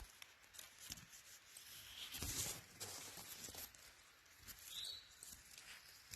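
Soft footsteps and rustling through brush and dry leaves, with scattered light crunches and a louder patch of rustle about two seconds in. A brief faint high chirp comes near the end.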